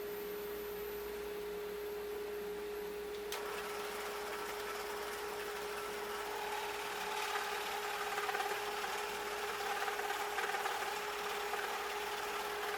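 Power saw running with a steady hum, cutting a piece of walnut; about three seconds in the noise of the cut joins the motor sound.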